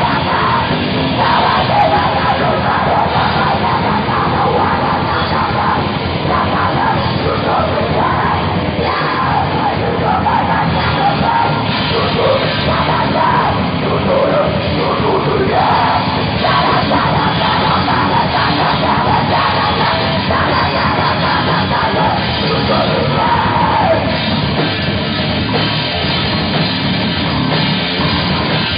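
A heavy metal band playing live: loud, dense distorted rock with drums, and shouted vocals at times.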